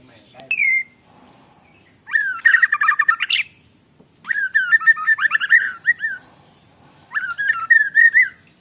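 White-rumped shama singing canary-like rolling trills learned from canaries: a short note, then three long phrases of rapid trilled notes with short pauses between.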